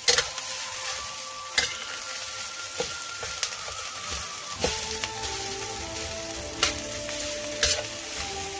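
Cold cooked rice and scrambled egg sizzling in a stainless steel wok, with a metal spatula knocking and scraping against the pan every second or so as the rice is stir-fried.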